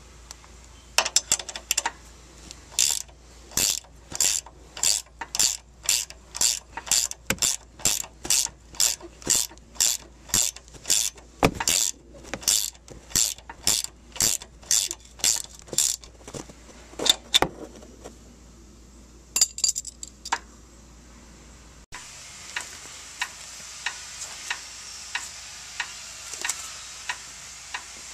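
Hand ratchet wrench clicking in steady strokes, about two a second, as it turns the nuts on a strut's upper mount studs. It stops about 17 seconds in, then after a short pause fainter, regular ticking follows.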